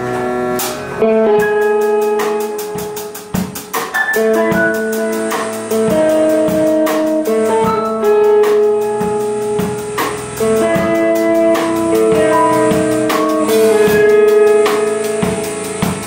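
Live rock band playing: a drum kit keeps a steady beat under electric guitar, bass and sustained keyboard chords from a Korg PS60 stage piano.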